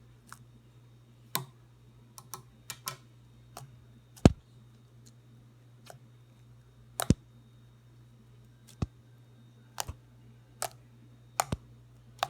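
Homemade slime being squeezed and pressed by hand, giving sharp, irregular clicks and pops, about a dozen spread unevenly, a few much louder than the rest.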